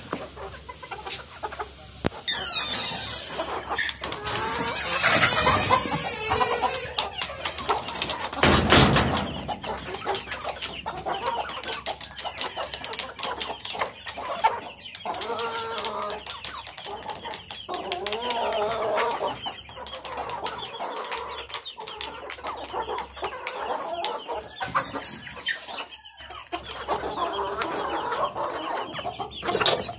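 Aseel hens and roosters clucking on and off, with many short clicks. In the first ten seconds there is a loud rush of noise lasting several seconds, then a loud thump.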